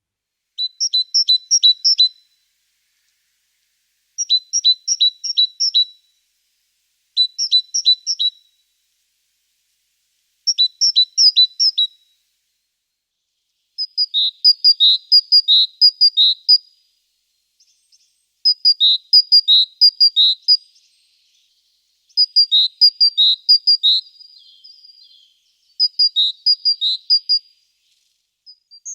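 A small songbird singing short phrases of rapid, repeated high notes, one phrase about every three seconds; the later phrases are fuller, with lower notes added.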